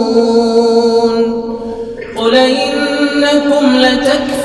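A man's voice chanting Quran recitation in a slow, melodic tajweed style, holding long ornamented notes. He breaks off for a breath about two seconds in, then resumes.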